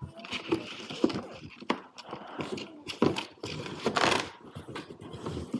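Pressure washer parts and packaging being handled during unboxing: irregular knocks and clicks of plastic parts being set down, with rustling and scraping of packing material, loudest about four seconds in.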